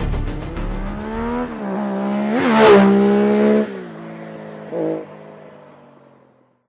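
Engine revving sound effect in an outro jingle. The pitch climbs and peaks with a rush of noise about two and a half seconds in, holds, then drops and fades away, with one short swell near the end.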